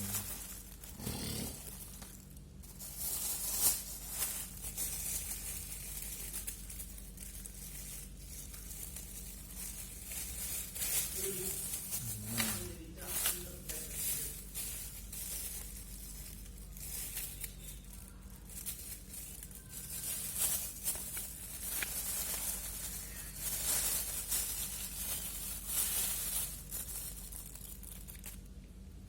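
Plastic packaging being handled, rustling and crinkling in irregular bursts, over a faint steady hum.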